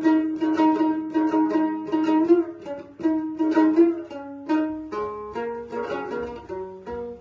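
Kyrgyz komuz, a fretless three-string lute, played solo with rapid, even strumming. For the first half it repeats one note; from about four seconds in the tune moves between several notes.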